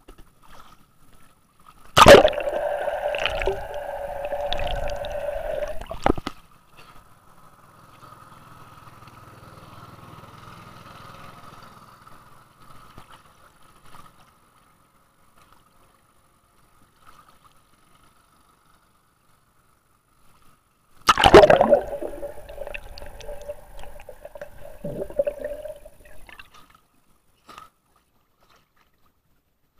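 Water gurgling and splashing around an action camera's waterproof housing as a swimmer dives with it. It comes in two loud stretches of about four to five seconds each, one about two seconds in and one about twenty-one seconds in, each starting suddenly. Between them the sound is muffled almost to silence while the camera is under water.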